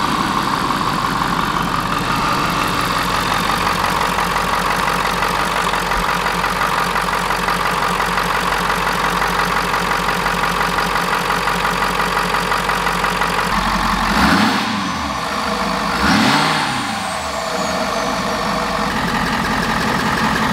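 Ford 6.7 Powerstroke V8 turbo-diesel idling steadily, then blipped twice about two-thirds of the way in, with a high whistle falling away after the second blip.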